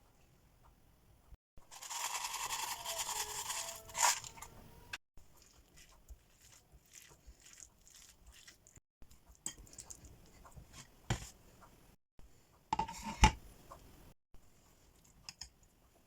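Kitchen food-preparation noises: a noisy stretch of scraping and tearing for about two and a half seconds, ending in a sharp click. Then scattered light clicks of utensils, with a couple of sharper knocks near the end.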